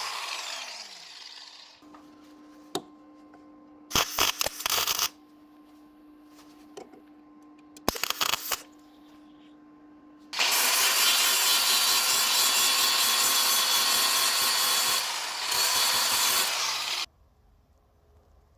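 A handheld power tool at work: a run at the start winds down with a falling pitch. Two short bursts follow over a faint steady hum, then a long run of about six seconds that stops abruptly.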